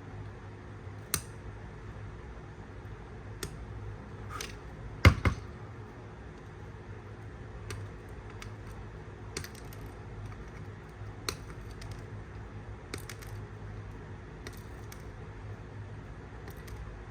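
Flush cutters snipping the excess leads of freshly soldered capacitors on a circuit board: sharp snaps every second or two, the loudest about five seconds in, over a low steady hum.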